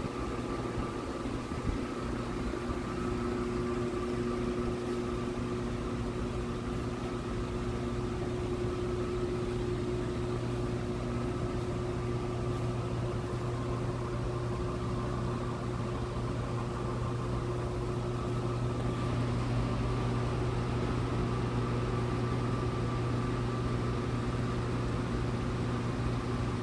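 Steady mechanical hum of a running shop machine: a low drone with a few constant higher tones above it, a little louder from about two-thirds of the way through.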